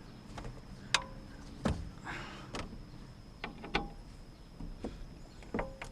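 Scattered sharp clicks and light knocks, about eight in all, from a Torx driver on T25 trim screws being checked for looseness, with a soft rustle near two seconds in.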